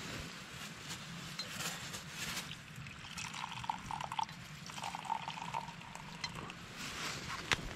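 Liquid being poured, gurgling into a container in two spells in the middle: hot chaga tea being poured into a mug. A single sharp tap near the end.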